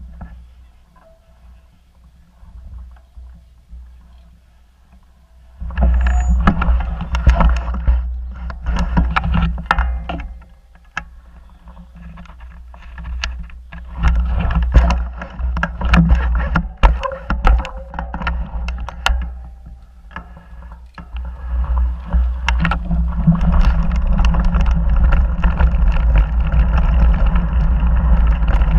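Mountain bike riding down a gravel dirt singletrack, heard through a bike- or body-mounted action camera: wind buffets the microphone while the bike and camera rattle and knock over bumps and loose stones. It is fairly quiet for the first five seconds or so, turns loud about six seconds in with many sharp knocks, and builds to a steady loud wind rumble over the last several seconds.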